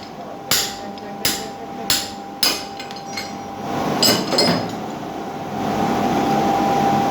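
Hammer blows on steel at the anvil during axe forging: four strikes about two-thirds of a second apart, then a short clatter. A steady rushing hiss starts a little past halfway.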